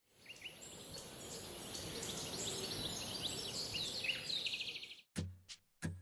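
Birds chirping and trilling over a steady outdoor hiss that fades in and cuts off suddenly near the end. A few short, low musical notes then begin.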